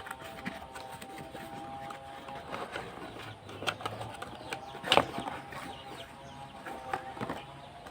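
Packaging of a snail-type motorcycle horn being opened by hand: scattered clicks and rustles, the sharpest knock about five seconds in.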